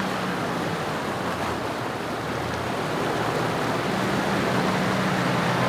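Fast-flowing creek water rushing steadily over a ford, with a four-wheel-drive ute's engine running low as it wades through the crossing, the engine hum growing louder in the last couple of seconds as it comes closer.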